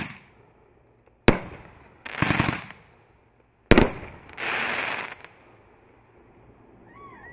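Consumer aerial firework shells bursting: three sharp bangs a little over a second and about two and a half seconds apart. After the second and third bangs comes about half a second to a second of dense crackling as the crackling stars break.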